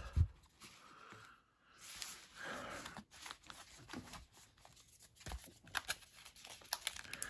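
Foil Pokémon booster pack wrappers faintly rustling and crinkling as a stack of packs is handled and set down, with a few soft taps.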